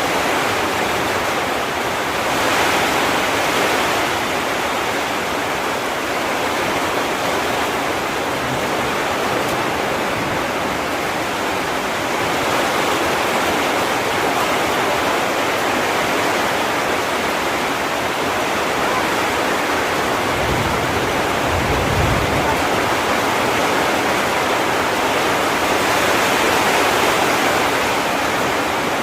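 Heavy rain falling steadily in a dense hiss, with a brief low rumble about two-thirds of the way through.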